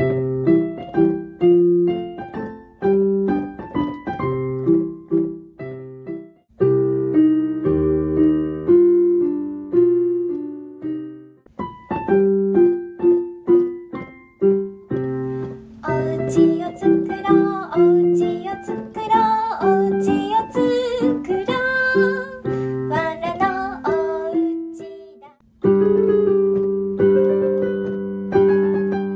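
Solo piano playing a string of short sound-effect cues for a children's story: chordal phrases broken by brief pauses, with a busier, higher run of notes in the middle.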